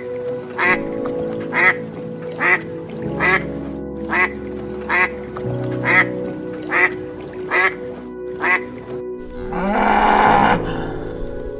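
Duck quacking in a steady series of about ten short quacks, roughly one a second, over background music, followed by a longer, noisier sound near the end.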